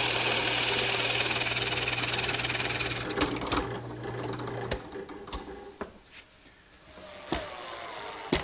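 Drill press running, its large boring bit cutting a 35 mm hinge hole into mahogany: a steady motor hum under a hiss of cutting for about three seconds. The hum stops about five seconds in, followed by a few scattered knocks and clicks.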